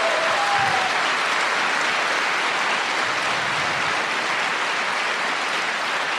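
Large audience applauding steadily, a dense even clapping; a brief high call rises over it in the first second.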